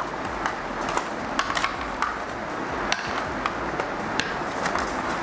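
Hands handling a hard plastic packaging tray while pulling a neckband earphone and its cable out of its slots: irregular light plastic clicks and taps over a steady rustle.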